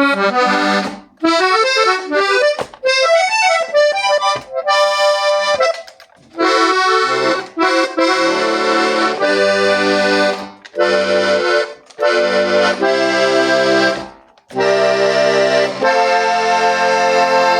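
Hohner Corona II three-row diatonic button accordion in G/C/F being played: quick runs of single melody notes, then from about six seconds in, held chords over low bass notes in short blocks with brief breaks between them.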